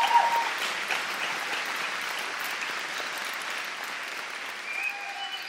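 Crowd applause, many hands clapping, slowly fading away, with a few brief pitched calls from the crowd just after the start and again near the end.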